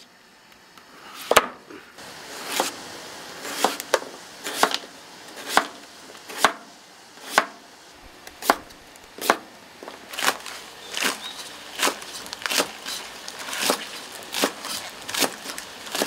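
Cleaver chopping through a peeled wax gourd on a plastic cutting board, one sharp knock about every second, coming a little faster in the second half.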